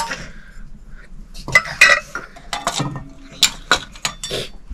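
Stainless steel bowls and utensils clinking and clattering as they are handled, in a quick irregular series with a little metallic ring; the loudest clatters come about two seconds in and again past three seconds.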